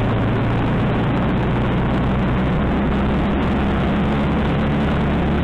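Small engine of a motorized bicycle running steadily as the bike rides along, a low, even engine hum under a steady rushing noise.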